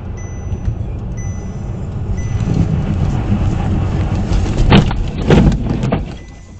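Car driving on a snowy road with a low rumble that builds, then two loud crunching impacts about half a second apart, nearly five seconds in, as it strikes the side of a box van. Faint high beeps sound on and off before the crash.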